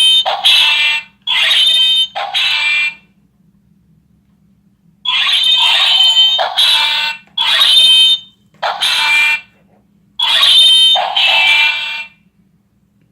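Electronic sound effects from a battery-powered plastic toy sword's small speaker, a harsh buzzing burst of about half a second to a second set off again and again. There is a run of four, a pause of about two seconds, then six more.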